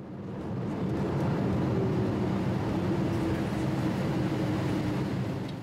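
Cabin noise aboard a Boeing 787 Dreamliner rolling along the runway after landing: a steady rush of engine and air noise with a faint low hum.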